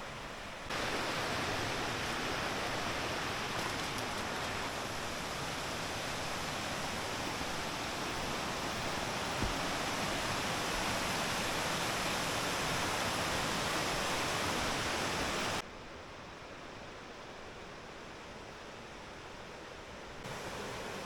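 Steady rush of a mountain river flowing over rocks. It gets louder suddenly under a second in, drops sharply about two-thirds of the way through, and rises again near the end.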